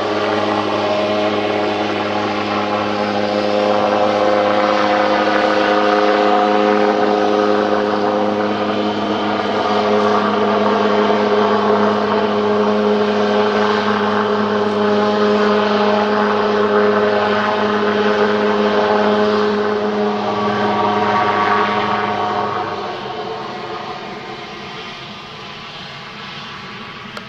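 Grob G120TP's turboprop engine and propeller running as the aircraft taxies, a steady hum of several pitches over a turbine hiss. The sound fades over the last few seconds as the plane moves away.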